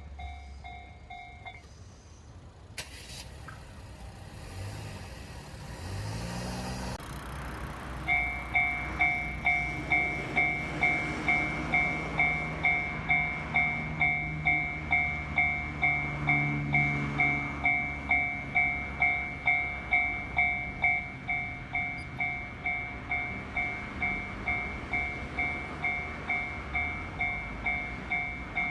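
Japanese railway level-crossing warning bell ringing 'kan-kan' at a steady pace of about one and a half dings a second, with a train rumbling beneath it. The bell breaks off after about a second and a half. It starts again about eight seconds in, after a low engine note rises in pitch.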